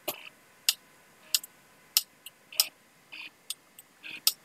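Tactile push buttons on an Anet A8 3D printer's LCD2004 control panel clicking, one sharp click about every two-thirds of a second as the X-axis move value is stepped up. Between the later clicks come a couple of short, softer whirs from the X-axis stepper motor moving the carriage.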